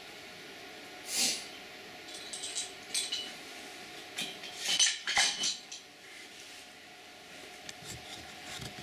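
Small metal engine parts and tools clinking and clattering as an engine is taken apart by hand, with short ringing tones after some of the knocks. A denser clatter comes about halfway through.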